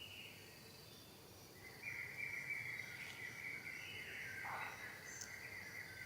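Insects chirping in a fast, steady pulse, with a high, wavering, drawn-out animal call starting about two seconds in.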